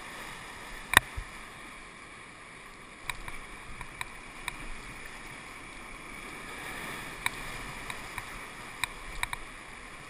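Whitewater rapids rushing steadily around a paddle raft. A sharp knock sounds about a second in, and a few fainter clicks and taps follow later.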